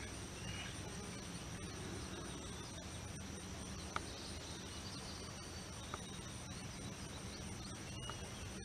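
Outdoor summer ambience: insects trilling in two steady high tones over a low steady rumble, with faint bird chirps and a few single sharp clicks, the loudest about four seconds in.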